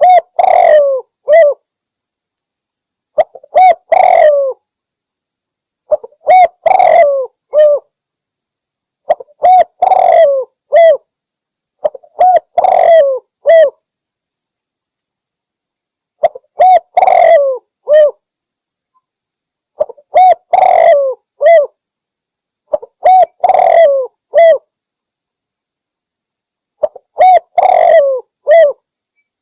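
Spotted dove (derkuku) singing its cooing song: nine phrases, about one every three seconds, each a short note, a longer rolling coo and a clipped final note, with complete silence between phrases.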